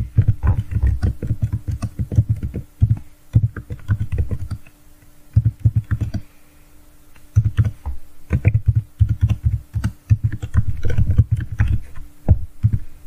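Typing on a computer keyboard: quick runs of key clicks broken by short pauses, with a faint steady hum underneath.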